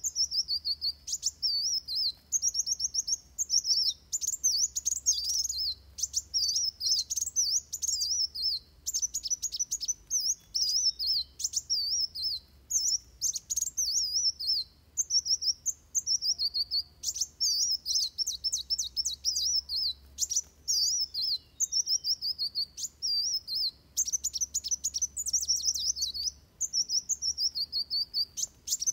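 Male kolibri wulung (Van Hasselt's sunbird) singing its 'tarung' fighting song: rapid, high, twittering phrases, one after another with only short breaks.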